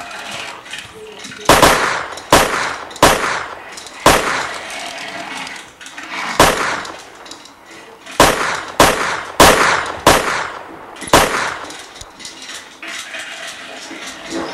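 A shootout's worth of gunshot bangs, about ten sharp shots at irregular intervals, each with a short ringing tail, as in a staged gunfight with toy revolvers.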